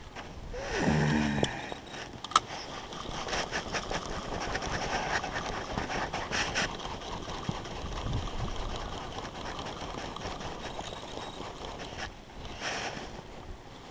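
Steady wind noise on the microphone over open water. A brief low hum-like voice sound comes about a second in, a single sharp click just after two seconds, and a run of small clicks and scrapes from handling the fishing tackle over the next few seconds.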